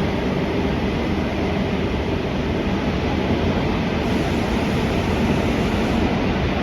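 Gwangju Metro Line 1 subway train running steadily between stations, heard from inside the carriage as an even, deep rushing noise.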